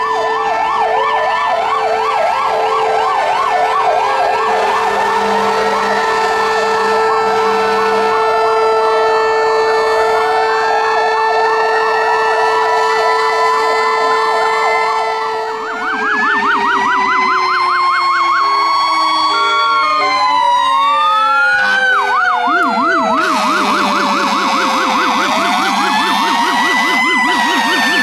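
Several fire engine sirens sounding at once and overlapping, some in a fast yelp and others in a slow rising-and-falling wail, with a steady held tone under them for the first half. About halfway through, the mix of sirens shifts.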